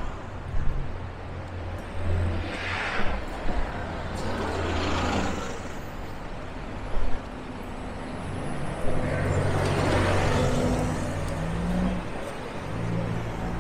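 Busy city street traffic: engines running and vehicles passing, their noise swelling and fading three times, with a short loud knock about seven seconds in.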